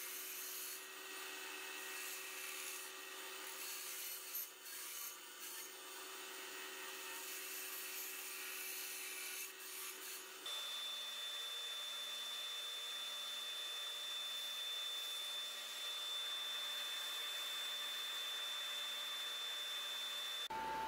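For about the first ten seconds a scroll saw runs with a steady hum as it cuts a small wooden lure blank. Then a bench belt sander runs with a steady high whine as the wooden body is shaped against the belt.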